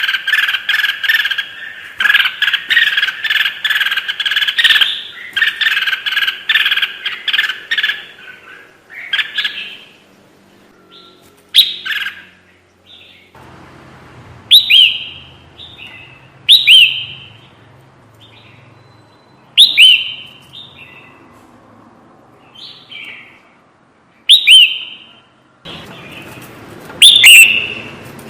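Crested bulbul (kutilang jambul) calling: a fast, dense chattering run of notes for about eight seconds, then short, sharp whistled calls every two to three seconds.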